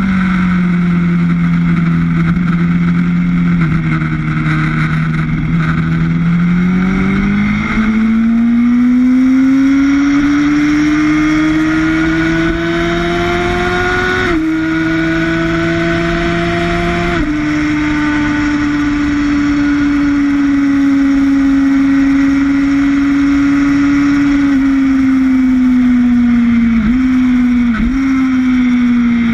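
Onboard sound of a sportbike's engine at speed on a race track: it pulls with a slowly rising pitch, drops sharply at two upshifts about halfway through, then holds steady, with two brief dips near the end. A steady rush of wind noise runs under the engine.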